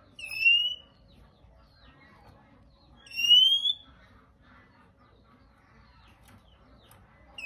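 Male Oriental magpie-robin giving its 'rít khè' call: two loud, rising whistled shrieks about three seconds apart, each under a second long, with faint soft chattering notes between them.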